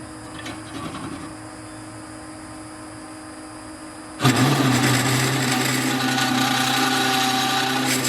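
Drill press motor humming quietly, then about four seconds in a much louder steady grinding cutting noise with a held whine starts as an annular cutter bores into metal.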